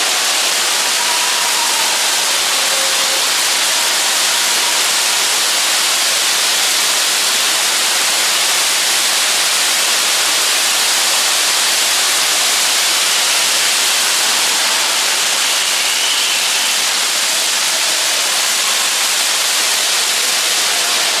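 Pyrotechnic fountains burning with a loud, steady hiss that breaks off abruptly at the end.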